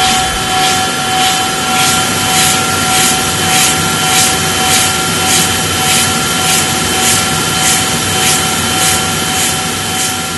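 Rotary grinding machine running with coolant pouring onto its spinning disc: a steady whine under a grinding hiss that swells about every 0.6 s, fading out at the very end.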